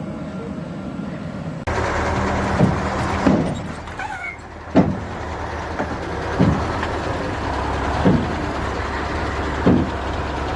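Heavy road-works machinery running: a steady engine hum that gets louder about two seconds in, with a sharp thud roughly every second and a half.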